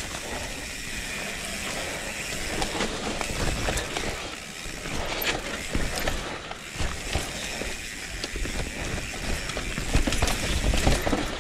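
Mountain bike descending a rough trail: tyres rumbling over dirt and roots, with a steady clatter of knocks and rattles from the bike. The tyres are run at high pressure.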